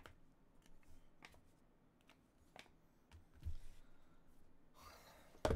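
Faint handling noise of trading cards being laid down on a rubber desk mat: a few light taps and clicks, a soft rustle near the end, then one sharp knock at the very end.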